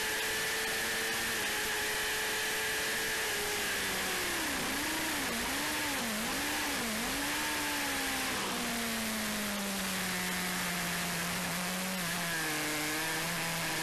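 Motorcycle engine heard on board at speed over steady wind noise. The engine note holds, then dips and recovers four times in quick succession a little before halfway, settles lower, and starts climbing again near the end.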